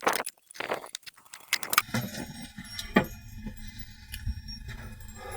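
Rustling, jingling handling noise of a clip-on microphone being fitted, for about two seconds. Then the sound changes to a quieter steady low background with a few small clicks.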